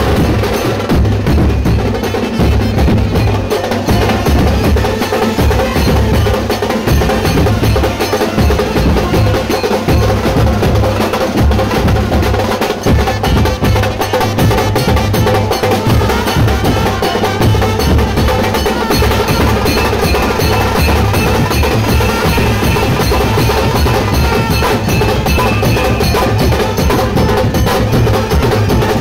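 Street procession band playing loudly: many hand-held drums beaten in dense, driving strokes, with trumpets and saxophones holding a melody over them.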